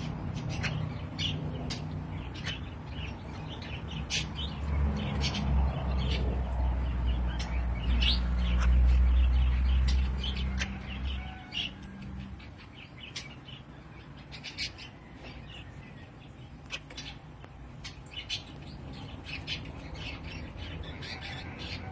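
Small birds chirping and calling in quick, sharp notes, repeated again and again: a bird-lure recording meant to draw wild birds in. A low rumble swells under the calls, loudest about nine seconds in, and fades out by about eleven seconds.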